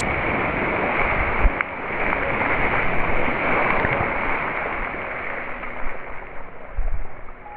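Muddy puddle water splashing and rushing as electric unicycle wheels plough through it, a dull, even wash with no high end. Low thumps come about a second and a half in and again near the end.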